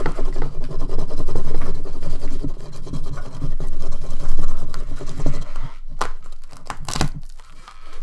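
Plastic cling wrap being stretched, rubbed and torn off delivery food dishes, a long squeaky rubbing and tearing. A few sharp knocks near the end.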